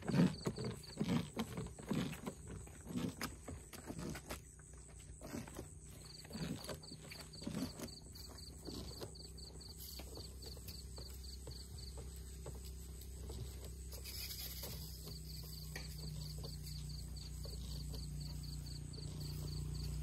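Footsteps walking away at about two steps a second, fading out over the first eight seconds, over a fast, high pulsing chirr of insects. A low steady hum grows louder near the end.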